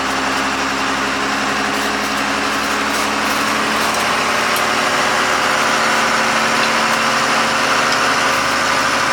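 Converted school bus's engine idling steadily, heard from inside the bus with its heater running: an even hum under a steady hiss.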